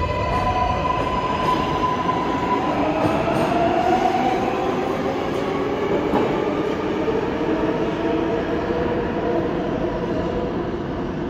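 New York City subway train running through the station: whining electric traction motors giving wavering tones, over a steady rumble of wheels and track. A steady high tone fades out a couple of seconds in.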